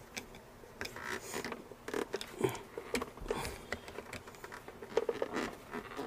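Irregular small clicks, knocks and brief scrapes of a screwdriver and hand working a plastic drive coupler as it is screwed onto and tightened on a mixer grinder's motor shaft.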